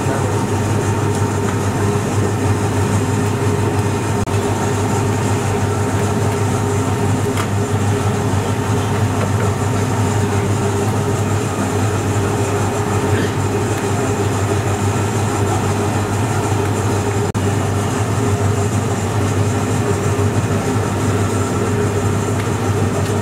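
Steady, loud low hum of running machinery.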